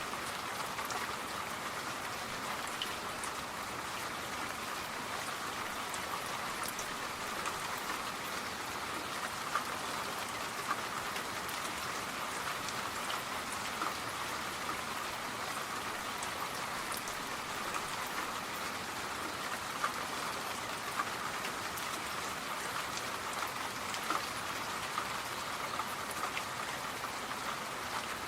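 Steady rain falling: a continuous even hiss with scattered drop ticks.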